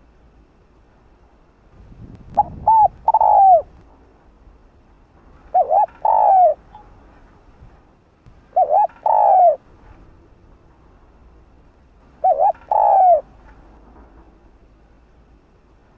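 Spotted dove cooing: four phrases about three seconds apart, each two short notes followed by a longer note that falls away at its end.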